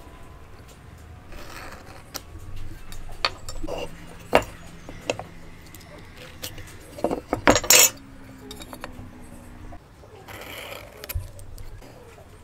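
Hand marking-out tools handled on a wooden timber: scattered clicks and metallic clinks as a steel square and a sliding bevel are set down and moved against the wood, with brief scratchy pencil strokes. A quick run of louder clicks comes about seven to eight seconds in.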